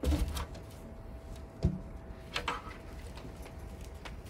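A few wooden knocks and bumps, about four, from a timber window sash being handled and shifted in its case; the first is the heaviest.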